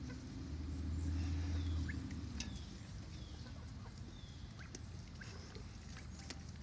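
Backyard poultry foraging: a few faint, short, high falling peeps and scattered small clicks. A low steady rumble is loudest in the first two seconds.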